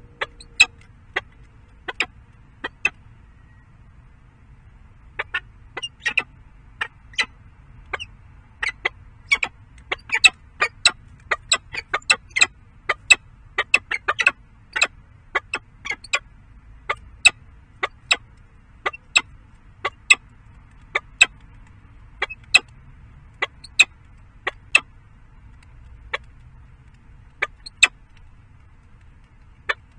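Peregrine falcon pecking in the nest box's gravel: sharp stony clicks of beak on small stones, irregular and sometimes several a second, thickest around the middle. Peregrines swallow such stones as gastroliths to help grind their food.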